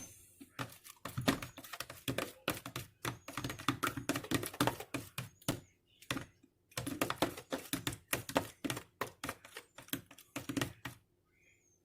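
A spoon clicking and scraping against a bowl in quick irregular taps while stirring hand-soap slime with baking soda, pausing briefly twice.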